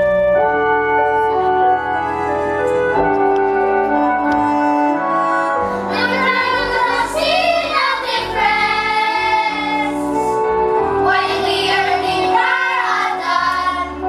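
Stage musical finale: instrumental accompaniment of held notes, then young voices singing over it from about six seconds in, breaking off briefly near ten seconds and coming back in.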